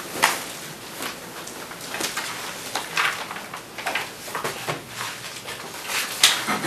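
Paper rustling as sheets are leafed through and turned over, in short irregular strokes, with a sharper tap about six seconds in.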